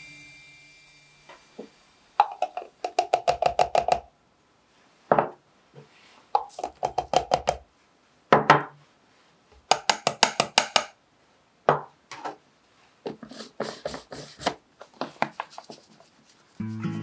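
Repeated short runs of quick taps and knocks, some with a light ring: small ceramic ramekins knocked against a plastic blender cup to empty flour, sugar and matcha into it, and the capped cup handled.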